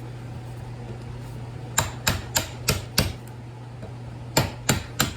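Hammer striking a steel punch to drive a transformer's copper windings out through its core: five sharp metallic blows about three a second, a pause, then four more near the end. A steady low hum runs underneath.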